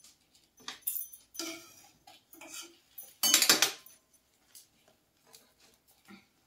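Kitchen handling noise: a few short, irregular clatters and rustles of utensils and containers on a counter, the loudest cluster about three seconds in.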